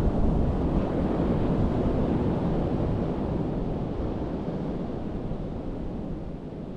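Sea surf washing up a sandy beach: one wave's wash swells and then slowly fades, with wind rumbling on the microphone.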